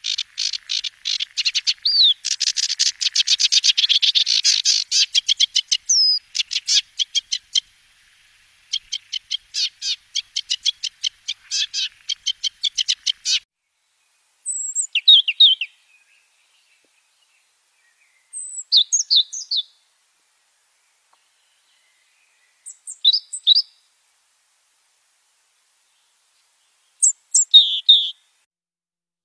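Sedge warbler singing: a fast, dense chatter of rapid repeated notes mixed with short whistles, running unbroken for about 13 seconds before it stops. After that, a few short high bird phrases come several seconds apart.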